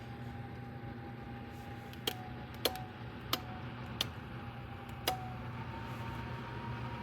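Electric space heater's fan running with a steady hum and a faint whine, and five sharp clicks between about two and five seconds in.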